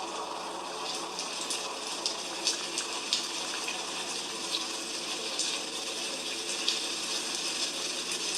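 Heavy rain falling steadily, with scattered sharp ticks of drops striking nearby.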